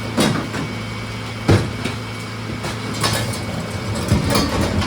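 Garbage truck engine idling steadily under a series of sharp metal clanks and bangs. The loudest bang comes about a second and a half in, with a cluster of clanks near the end.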